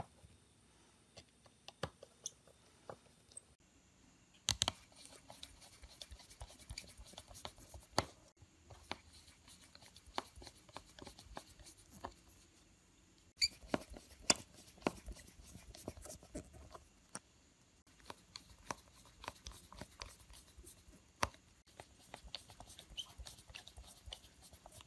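Scattered small clicks and scratches of a precision screwdriver turning tiny screws into a Samsung Galaxy S7 Edge's frame, with light handling of the phone.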